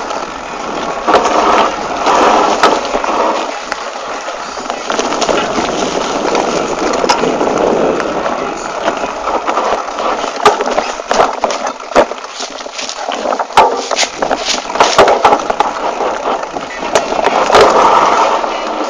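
Mountain bike ridden fast over a rough dirt trail: tyres rolling on dirt and the frame and chain rattling, with many sharp knocks as it hits bumps.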